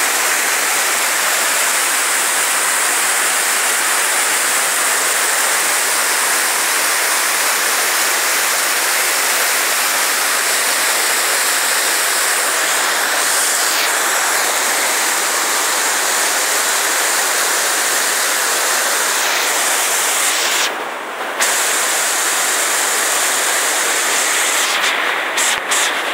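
Waterfall whitewater pouring over rock close by, a loud, steady rush of falling water. It briefly dips and sounds duller about three-quarters of the way through.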